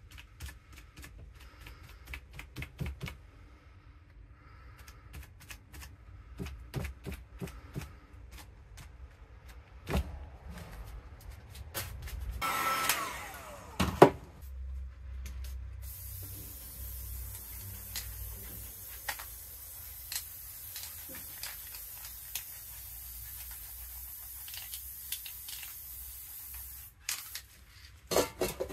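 Scattered taps and rustles of hands working, a sharp knock about fourteen seconds in, then an aerosol spray-paint can hissing steadily for about eleven seconds before it cuts off suddenly.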